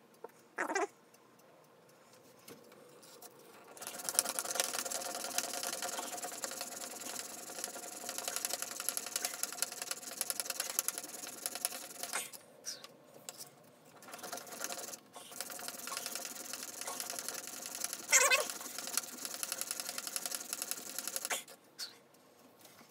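A steel chisel held in the MPower FastTrack Mk2 sharpener is rubbed back and forth over its sharpening stone, making a steady gritty scraping. It starts about four seconds in, pauses briefly twice midway, and stops near the end, with a brief louder sound about eighteen seconds in.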